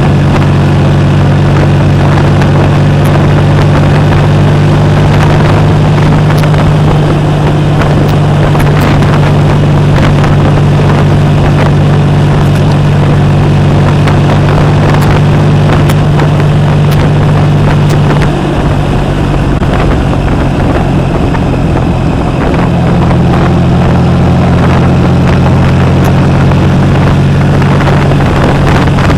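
Triumph Rocket III Roadster's 2.3-litre three-cylinder engine through a Jardine aftermarket exhaust, running steadily at cruising speed. About eighteen seconds in the throttle eases off and the note drops lower and quieter, then picks up again a few seconds later.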